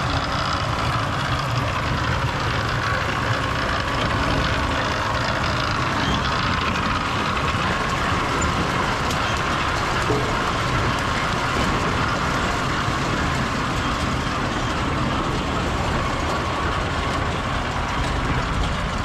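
Tractor running steadily under load while pulling a root-removal machine slowly through roots and dirt.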